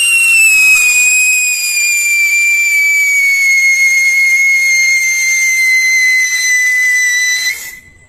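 Cock brand siren pencil torch firework whistling while it sprays sparks: one long shrill whistle that slowly falls in pitch over a hiss, cutting off suddenly near the end as it burns out.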